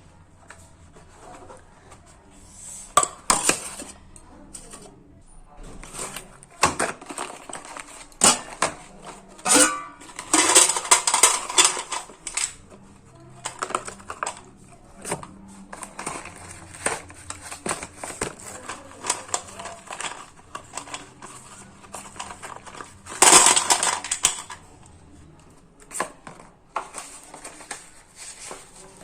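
Chandni-brand slate pencils being bitten and chewed: sharp snaps and gritty crunches in irregular bursts, loudest about three, ten and twenty-three seconds in.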